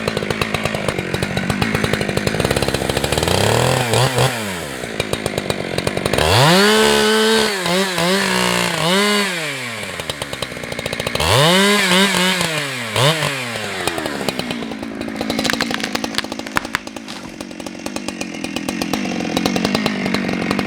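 Husqvarna 365 two-stroke chainsaw running at idle, then revved up and down several times in the middle as it cuts, the pitch rising and falling with each burst, before settling back to a steady idle.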